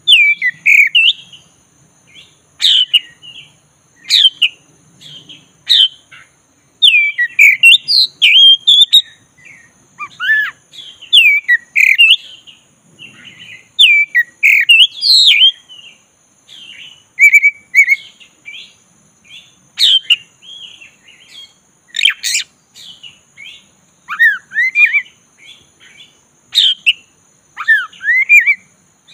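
Black-breasted Oriental magpie-robin singing in full song: a long run of short, varied whistled phrases and chirps that sweep up and down, separated by brief pauses.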